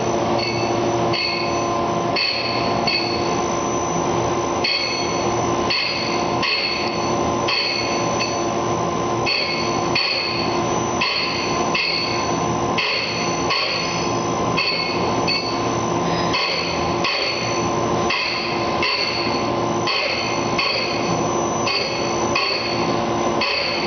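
Wheel-dressing machine at work: the abrasive-wheel and dressing-wheel spindles hum steadily while a hard diamond dressing wheel dresses a radius on a 220-grit Borazon (CBN) grinding wheel. The contact between the wheels comes as a short gritty rasp that repeats about one and a half times a second.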